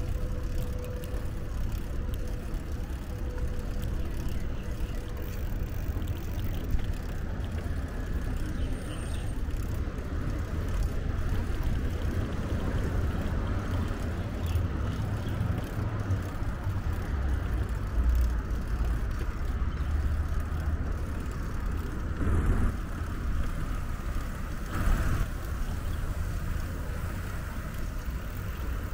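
Steady low rumble of riding a bicycle: wind buffeting the microphone and tyre noise on the path, with a hum like road traffic behind it, and a couple of brief louder swells near the end.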